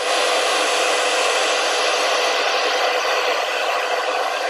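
Loud, steady FM static hiss from the Pagaria WALKIE pocket radio's small speaker, turned up high and tuned to 87.5 MHz with no station coming in.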